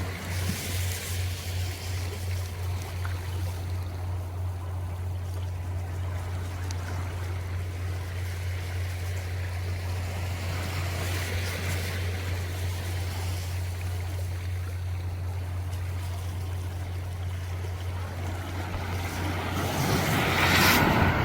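Sea waves washing in over a steady low rumble, with a louder wave surging in near the end.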